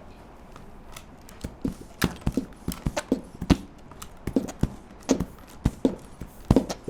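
Hollow knocks in a clip-clop rhythm imitating horse hooves, a foley hoofbeat effect, starting about a second and a half in and going on in uneven groups of two or three.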